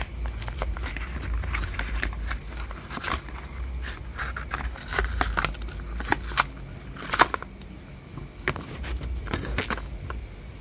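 Packaging for wireless earbuds being handled: a plastic bag of spare eartips and the cables, then the paper manual and the cardboard box, giving crinkling and rustling with scattered sharp clicks and knocks. A low rumble from the hands handling the recording phone runs under it.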